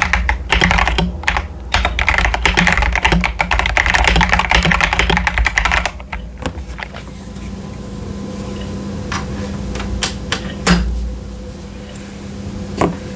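Mechanical keyboard typing on a modded CIY Tester 68 hotswap board with stock Akko Jelly Purple switches and PBT keycaps. Fast continuous typing for about six seconds, then a handful of separate, slower keystrokes.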